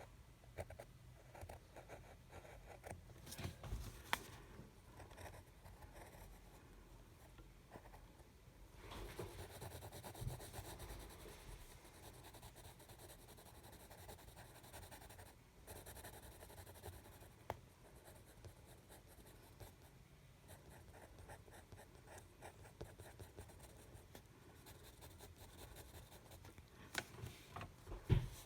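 Quiet scratching of a drawing tool moving over paper as a picture is drawn, with a few short knocks around four seconds in and near the end.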